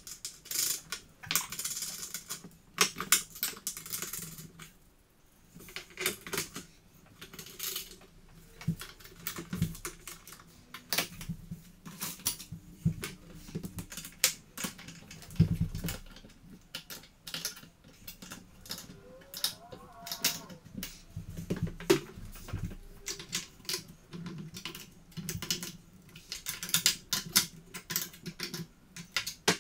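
Barn door hanger hardware handled and fitted by hand: irregular metal clicks and clinks of bolts, washers and roller wheels going onto the steel straps.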